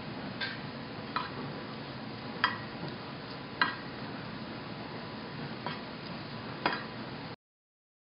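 Pastry brush spreading melted butter over a glass baking dish, with six short, sharp clinks of brush and glass a second or so apart over a steady hiss. The sound cuts off abruptly shortly before the end.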